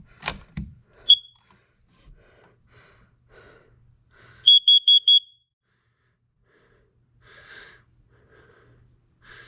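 Carbon monoxide detector sounding its test: a single short high beep, then a quick run of four high-pitched beeps. The four-beep group is the CO alarm pattern, a sign that the unit passes its test. A click comes just before the first beep.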